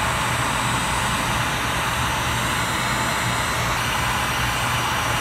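Electric heat gun blowing steadily, its fan and motor giving a constant whoosh with a low hum, while heating heat-shrink tubing over soldered fuel pump wire joints.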